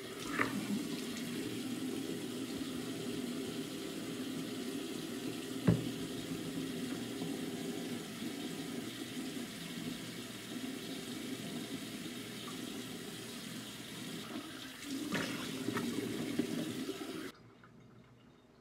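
Bathroom sink faucet running steadily into the basin while a face is washed under it, with one sharp knock about six seconds in and louder splashing shortly before the water cuts off suddenly near the end.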